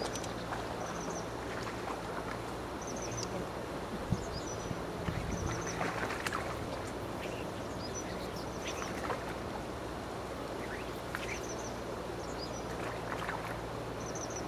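Steady rushing outdoor background with short high chirps of small birds several times, and a brief low rumble about four to five seconds in.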